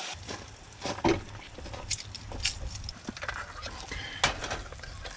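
Scattered light clicks and clinks of utensils and dishes over a low steady rumble.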